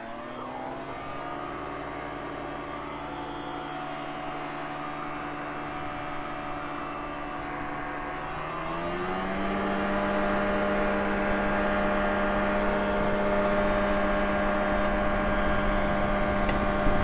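Quad City Challenger II ultralight's engine running at low power, then opened up to full throttle about eight or nine seconds in. Its pitch rises and holds steady and louder for the takeoff roll.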